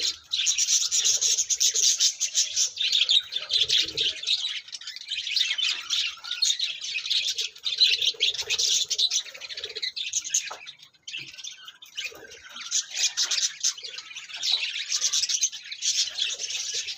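A flock of lovebirds chattering and chirping continuously, a dense high-pitched twittering, with a brief lull about eleven seconds in.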